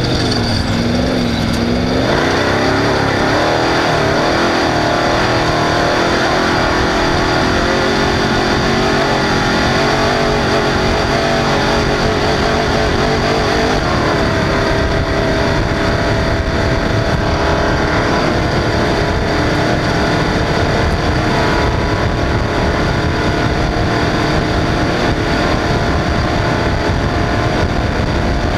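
Off-road race car engine running hard at speed, its pitch rising and falling in the first few seconds, then holding steadier, over a heavy low rumble.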